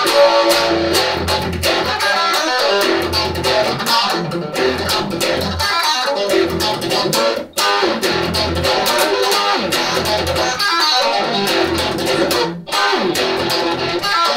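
Strat-style electric guitar playing an instrumental break of a blues-rock song, with low notes pulsing underneath. The music breaks off briefly twice.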